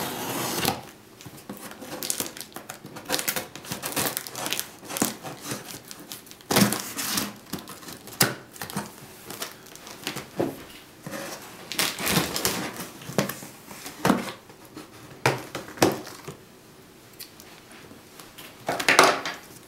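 A box-opening tool cutting through packing tape on a thick cardboard shipping box, with irregular scraping, ripping and crinkling strokes as the box top is worked open, and a louder rustle near the end.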